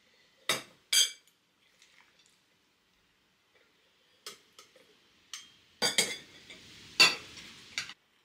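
A utensil clinking against glass canning jars as pieces of meat are scooped in: two ringing clinks about half a second apart near the start, then a cluster of clinks and knocks in the last few seconds.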